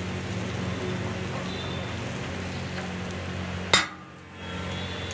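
Steady sizzling hiss of a dosa cooking on a hot flat griddle under a low hum. About three-quarters of the way through there is one sharp click, and the sound briefly drops away after it.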